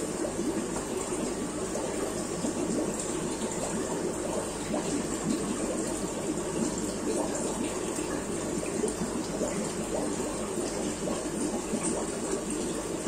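Aquarium aeration and filter running: steady bubbling and trickling of water.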